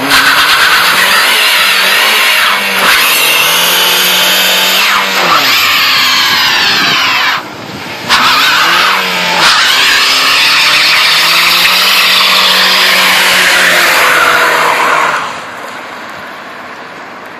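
Car burnout: the engine is held at high revs while the spinning tyres screech, with the pitch sagging and climbing as the revs change. It cuts out briefly about seven seconds in, starts again, and stops about fifteen seconds in.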